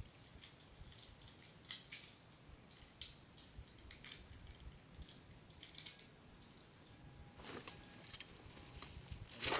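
Faint, scattered small clicks and rustles of handling noise, with a louder rustle near the end.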